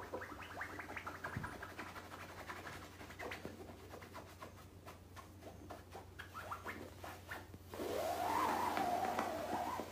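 Domestic cat on edge: faint clicks and scratchy sounds, then from about eight seconds in a drawn-out, wavering yowl that lasts about two seconds.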